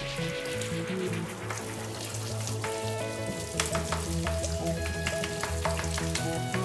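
Electronic background music with held bass notes that change every second or so, over a crackling, sizzle-like hiss with scattered clicks.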